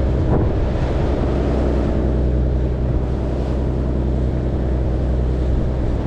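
Boat engine running steadily, with wind buffeting the microphone and sea noise.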